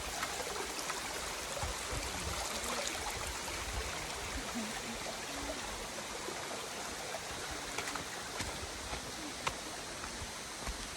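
Stream water rushing steadily over rocks, with a few faint clicks.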